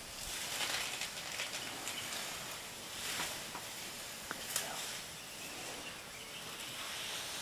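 African elephants browsing among leafy branches, a steady rustling and crackling of foliage with a couple of sharp cracks about halfway through.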